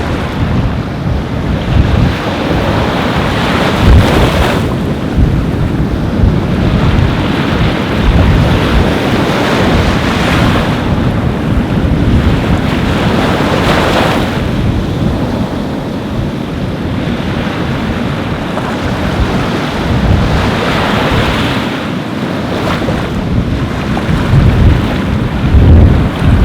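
Ocean surf breaking on a beach, the wash of the waves swelling and fading every few seconds, with wind buffeting the microphone in a low rumble.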